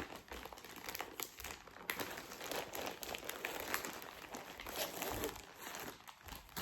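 Packaging crinkling and rustling in the hands as a stamped cross-stitch kit is lifted out of its box, with irregular small crackles and clicks.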